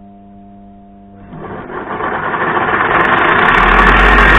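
Electric sharpening grinder switched on: a brief hum, then the motor and wheel spinning up and growing steadily louder over about two seconds into a loud, even run.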